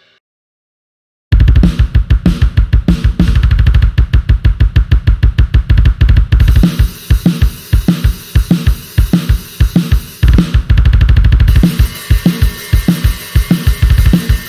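Sampled acoustic drum kit from the Drum Daddy Kontakt library playing a fast pattern. Rapid bass drum strokes run under snare hits and cymbals, and the pattern starts abruptly after about a second of silence.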